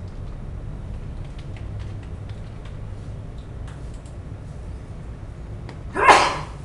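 Computer keyboard keys clicking in scattered taps as values are typed, over a steady low hum. About six seconds in there is a brief, loud rushing noise, the loudest sound present.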